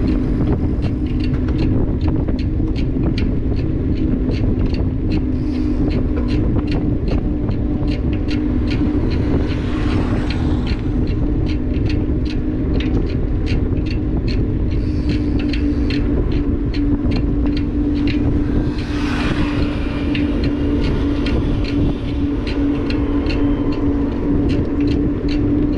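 Motorbike riding along a road: a steady engine hum under heavy wind noise on the microphone, with a quick, even ticking. Something louder swells past about ten seconds in and again just before twenty seconds.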